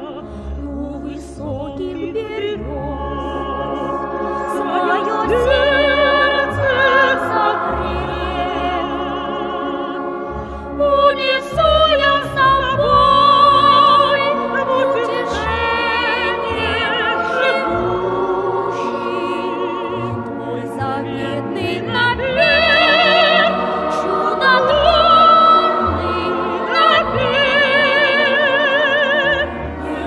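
Operatic music: a high voice sings long, held notes with a wide vibrato over an accompaniment.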